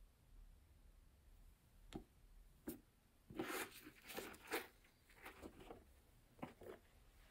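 Quiet handling noises as a pair of used sneakers is picked up and turned over: a couple of light taps, then a run of short rustles and scuffs around the middle, and a few more near the end.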